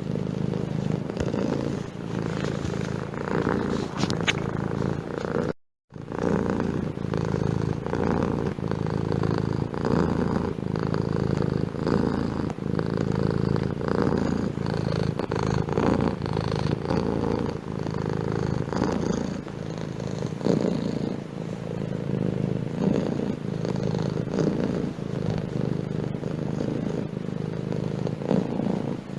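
Domestic cat purring steadily and closely, a low continuous rumble. It breaks off completely for a fraction of a second about six seconds in, then resumes.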